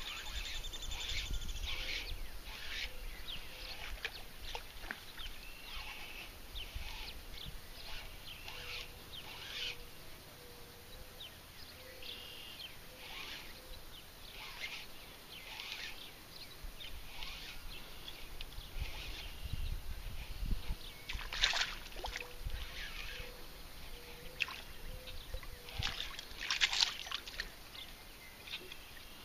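Small birds chirping over a low rumble of wind on the microphone, with two louder splashes in the last third as a hooked fish thrashes at the surface close to the shore.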